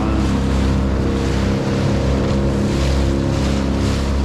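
Yamaha 25 hp outboard motor running steadily at cruising speed, driving an inflatable boat, with water rushing and splashing along the hull.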